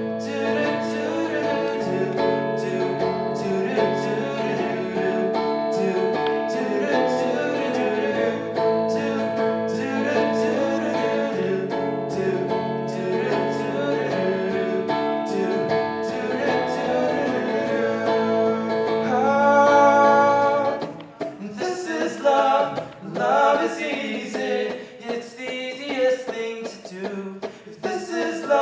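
Electric guitar accompanying a male voice singing a song. About 21 seconds in, after a long held sung note, the guitar stops and the singing goes on without it.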